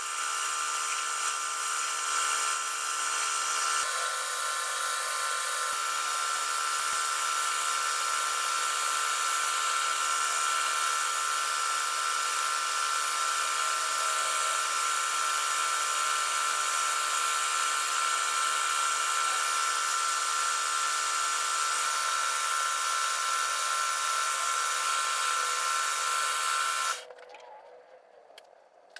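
Electric power-tool motor running steadily with a high whine, uneven for the first few seconds, then cutting out about 27 seconds in.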